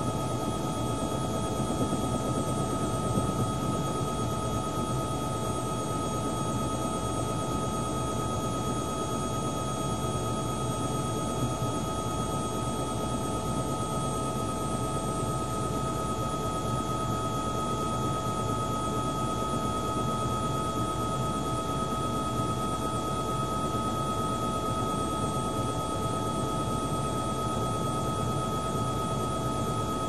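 Bell 505 JetRanger X helicopter heard from inside the cabin, its turboshaft engine and rotor running steadily. A constant high whine sits over a dense low rumble, with no change in pitch or level.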